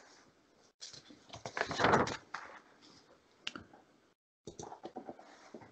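Low handling noises at a computer: a brief rustle about two seconds in, a single sharp click a little after three seconds, and a few soft clicks near the end.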